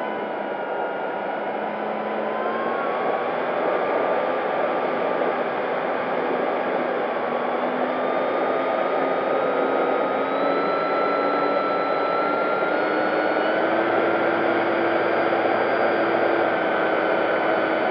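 Electric motor and propeller of an FMS P-40B Tomahawk RC plane whining in flight, heard from a camera on the airframe, with wind rushing over it. The pitch sits lower for the first couple of seconds, then climbs in steps through the middle as the power comes up.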